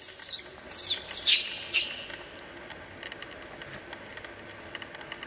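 About four quick, shrill animal squeals or chirps in the first two seconds, then faint outdoor background with a thin, steady high whine.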